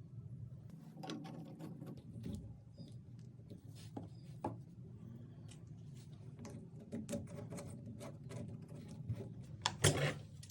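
Light clicks, taps and small clinks of hand-work on a toilet shut-off valve and its small repair parts, with a louder clatter of clicks near the end, over a faint low steady hum.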